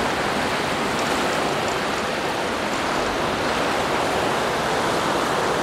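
Ocean surf churning and washing around the rocks below, a steady rush of water.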